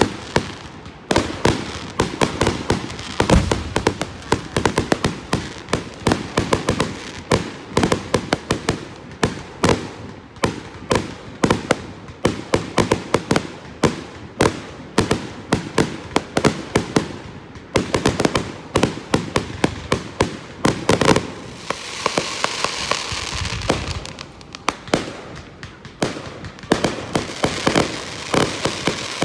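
Fireworks display: rapid bangs of aerial shells launching and bursting, several a second. A couple of seconds of continuous hiss comes about three-quarters of the way through, then the bangs resume.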